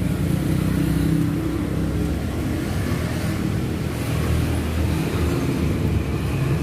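Steady hum of motor traffic running by on the street, a continuous low engine drone.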